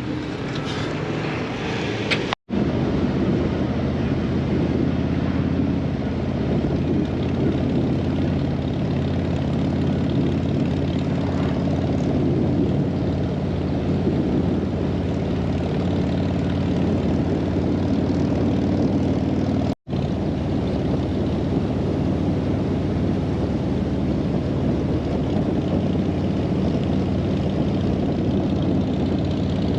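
Harley-Davidson V-twin touring motorcycle running at a steady speed under way, with wind rushing over the camera. The sound cuts out completely for an instant twice, about two seconds in and again near the twenty-second mark.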